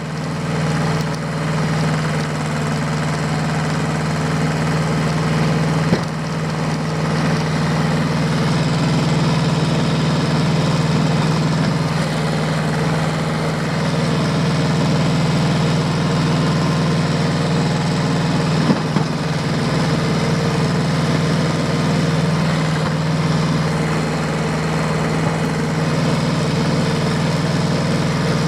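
Diesel tractor engine running at a steady speed, with two brief knocks, one about a fifth of the way in and one about two-thirds of the way in.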